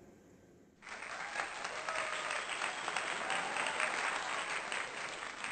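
Applause from a crowd: many hands clapping, starting suddenly about a second in and running on steadily.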